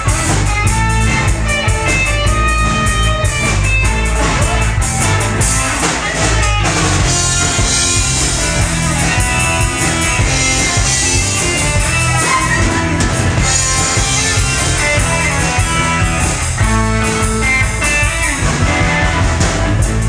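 Live rock band playing with no singing: electric guitars over a drum kit and a strong, steady low end.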